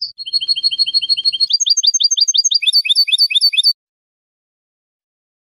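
European goldfinch singing: a loud, fast string of short repeated notes, about seven a second, changing about a second and a half in to a run of sweeping notes that each rise and fall. The song stops abruptly shortly before four seconds.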